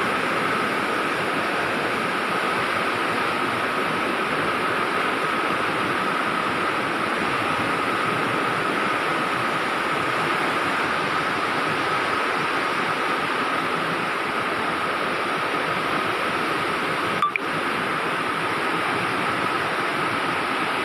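Steady rushing noise of water, even and unbroken, with a thin high whine held under it and a single click about seventeen seconds in.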